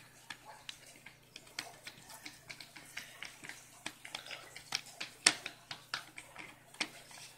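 Hands pressing and smoothing masa onto a soaked corn husk on a wooden board: irregular small clicks and crackles of the husk and fingers, several a second, with a sharper click about five seconds in.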